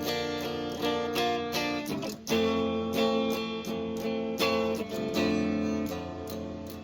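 Solo guitar playing an instrumental passage of strummed chords with ringing, sustained notes, with a hard strum a little over two seconds in.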